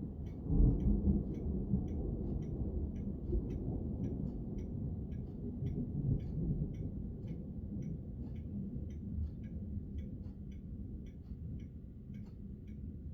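Thunder rumbling, loudest about half a second in and rolling on for several seconds as it slowly fades. A steady light ticking, about two to three ticks a second, runs through it.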